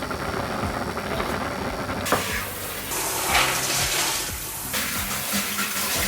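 Water running from a kitchen tap, starting with a click about two seconds in, under background music.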